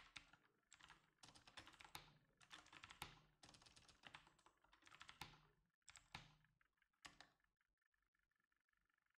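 Faint typing on a computer keyboard: quick runs of keystrokes in uneven bursts, stopping about seven seconds in.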